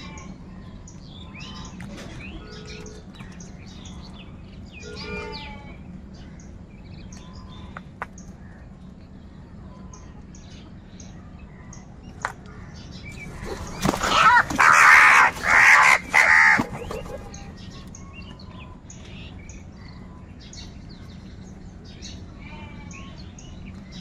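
House crows calling off and on while feeding. About two thirds of the way through comes a loud stretch of harsh cawing in three close bursts.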